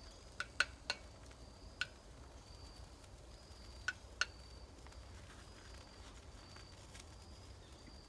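Metal utensil clinking and tapping against a small frying pan while stirring onions, a handful of sharp clicks spread over the first half.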